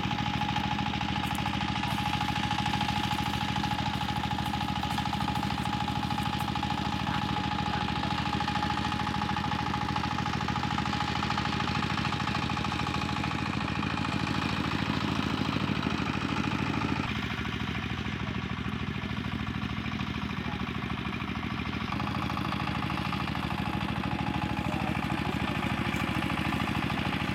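A small engine running steadily with a rapid, even knock; its sound shifts slightly about 17 seconds in.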